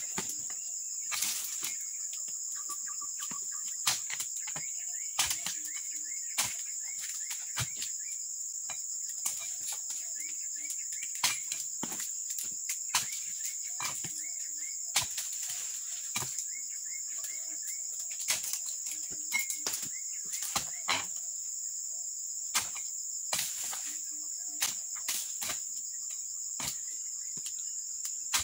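A dodos, a chisel blade on a long pole, chopping into the frond bases of a low oil palm during pruning: sharp, irregular strikes about every one to two seconds. Under them runs a steady high-pitched insect drone.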